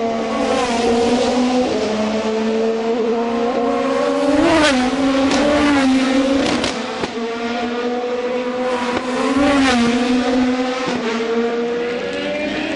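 IndyCar race cars' twin-turbo V6 engines running at speed on a soaked track, with several cars passing close by in turn. Each pass makes the engine note swell and bend in pitch over a steady engine drone and the hiss of tyre spray.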